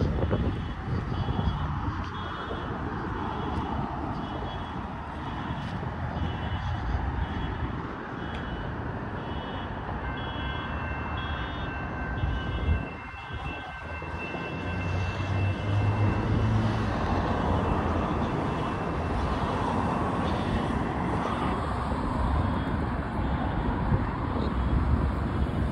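Steady rumble of wheels rolling over rough asphalt and concrete, mixed with wind and traffic noise, with a faint high electronic beep repeating at an even pace throughout.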